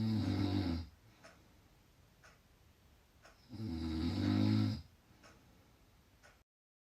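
Loud snoring of a sleeping person: two low, pitched snores about three and a half seconds apart, with faint ticks about once a second in the quiet between them. The sound cuts out completely near the end.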